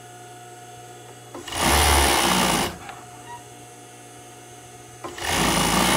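Yamato industrial overlock sewing machine stitching in two short runs of about a second each, one about a second and a half in and one near the end, with a low steady hum between them.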